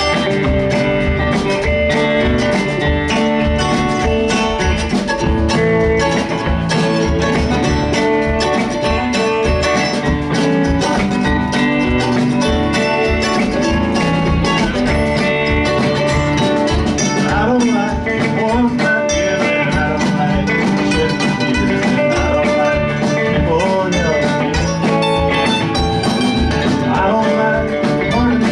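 Live band playing country-style music: guitar over a steady drum beat.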